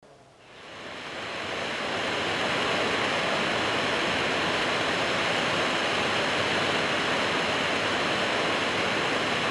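Waterfall: a steady rush of water falling onto rock, fading in over the first two seconds and then holding level.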